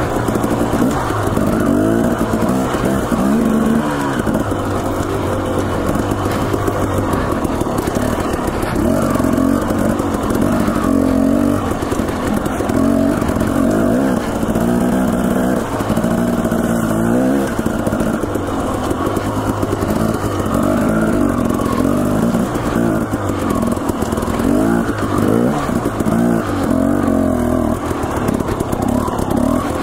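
Dirt bike engine under way on rough single-track, its revs rising and falling over and over as the throttle is worked.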